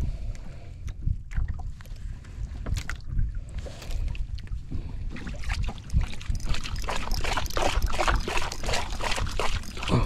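Wind buffeting the microphone in a steady low rumble, with water slapping and splashing against an outrigger boat's hull; the splashing grows busier about halfway through.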